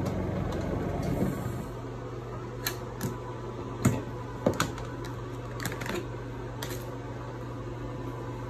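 Plastic clicks and knocks as the lid of a twin-tub washer's spin-dryer compartment is opened and the spun clothes are handled inside the drum, the loudest knock about four seconds in. A low hum dies away in the first second or two.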